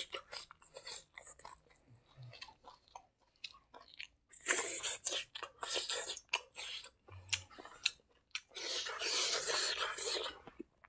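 Mouth sounds of a person chewing rice and fresh leafy herbs: many small wet clicks, with two louder, denser stretches of chewing about four and nine seconds in.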